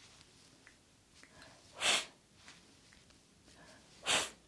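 A woman's voice making the unvoiced 'th' sound on its own, a short breathy hiss of air through tongue and teeth, twice, about two seconds apart.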